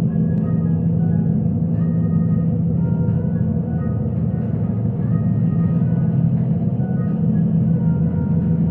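Steady low engine drone of a vehicle, with scattered short high notes coming and going above it.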